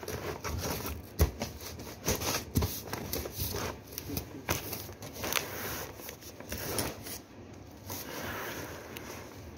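Irregular crinkles, clicks and rustles of plastic wrap, plastic bottles and cardboard being handled as a home-made water-bottle chair and its cushion are adjusted. The handling noise is busiest for about the first seven seconds, then quieter.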